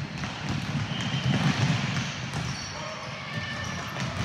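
Basketballs bouncing on a hardwood gym floor while players run, a continuous patter of low thumps.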